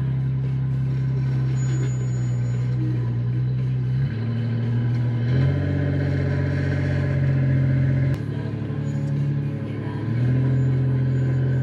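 Off-road rig's engine running at a low, steady pitch while crawling over rock ledges. Its note shifts a few times, stepping up about four and five seconds in, dropping and quieter around eight seconds, and coming back up near ten seconds, as the throttle changes.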